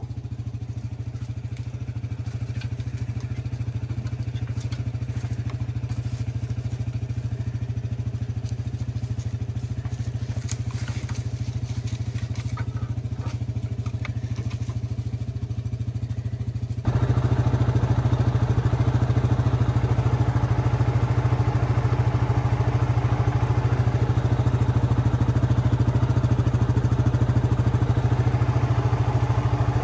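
Yamaha Grizzly 700 ATV's single-cylinder engine running steadily at idle, getting suddenly louder about halfway through and then holding a steady, stronger note as the quad moves off. A few faint clicks come through in the middle.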